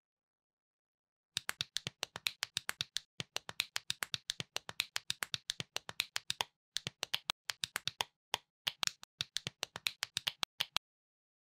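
Small plastic building bricks clicking together in a rapid run of sharp clicks, several a second, with a few brief pauses, as a model is snapped together piece by piece.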